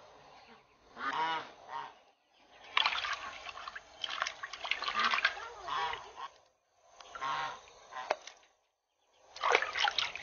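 Domestic fowl calling with a few short pitched calls, about a second in and again later. Between the calls, water splashes and sloshes in a metal basin as food is rubbed clean by hand.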